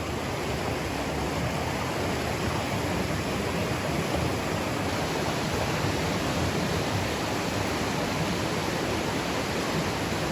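Steady rush of water in a fast mountain stream.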